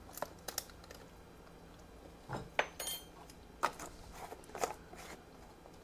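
Light clicks and clinks of a teaspoon and spice containers being handled while seasoning is measured out, one clink ringing briefly about three seconds in. A faint steady hum runs underneath.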